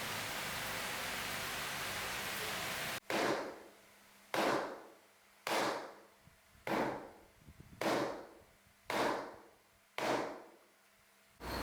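A steady hiss, then seven short bursts of hissing about a second apart, each starting sharply and fading away.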